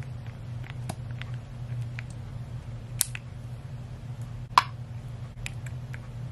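A few light clicks from a cosmetic pump bottle of face primer being pressed, the clearest about three seconds in and again a second and a half later, over a steady low hum.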